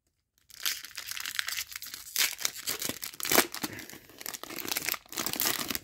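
A hockey card pack's wrapper being torn open and crinkled in the hands: irregular crackling and tearing with sharp little snaps, starting about half a second in and going on in uneven bursts.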